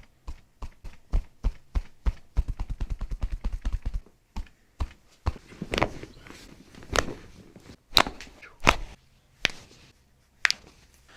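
Joints cracking during chiropractic adjustments: a string of sharp clicks, a quick rapid-fire run in the middle, then a few louder single cracks, some with a dull thud.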